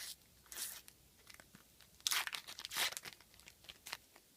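A sticker-pack wrapper being torn open and crinkled by hand: a string of short, crackly rustles, the densest run about two seconds in, with small clicks between.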